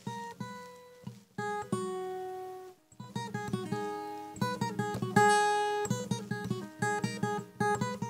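Background music on acoustic guitar: a run of plucked notes and chords, with a short break about three seconds in.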